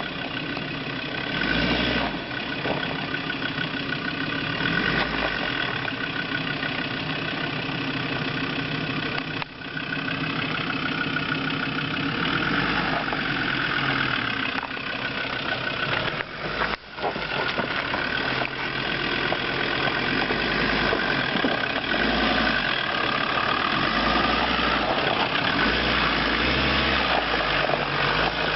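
Land Rover Discovery's 2.5-litre Tdi turbodiesel engine running at low speed off-road. It has short dips in level about nine and seventeen seconds in, and runs a little harder in the second half.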